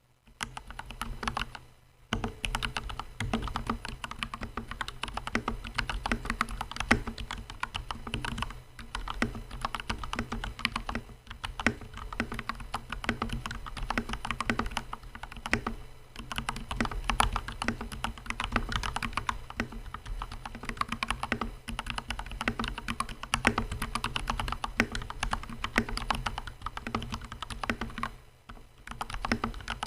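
Typing sound test on a mechanical keyboard fitted with Gateron Black KS-3X47 linear switches, lubed with Krytox 205g0 on the housing and stem and 105g0 on the springs. It is a fast, continuous run of keystrokes, with short pauses about two seconds in and near the end.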